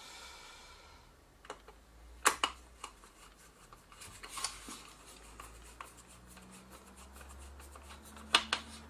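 Small sharp clicks and rubbing of a screwdriver and a small screw against a camcorder's plastic button housing as the screw is driven in. The two loudest clicks come about two seconds in and near the end.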